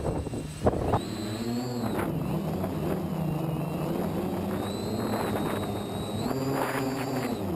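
Electric quadcopter (KK2 PowerQuad) motors and propellers whirring. From about a second in the pitch rises and falls repeatedly as the throttle changes, with wind buffeting on the microphone.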